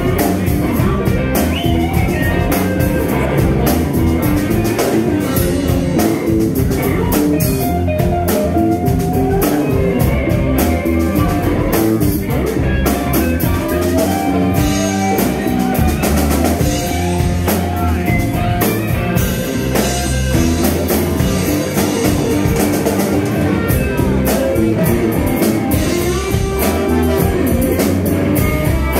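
Live band playing an improvised 12-bar blues in C, with electric bass, drum kit and guitar keeping a steady groove.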